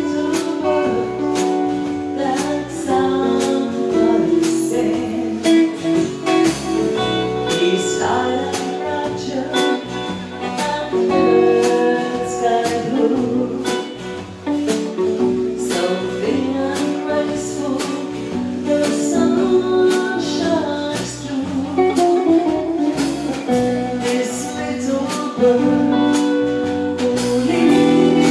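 Live rautalanka band playing: a guitar-led tune over walking bass notes and a steady drum beat.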